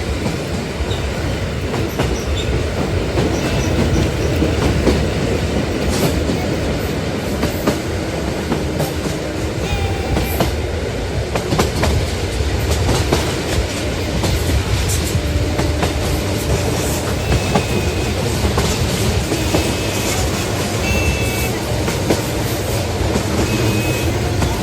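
Toy train locomotive running along its track, a steady motor whir with wheels clicking over the track and brief high squeaks now and then. The locomotive slips in places on the uneven homemade track.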